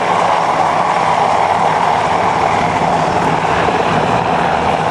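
Coast Guard MH-60 helicopter hovering, a steady, unbroken rotor and turbine noise.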